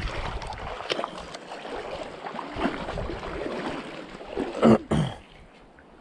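Steady rushing noise of creek water and wind on the microphone, with two loud bumps close together near the end, after which it goes quieter.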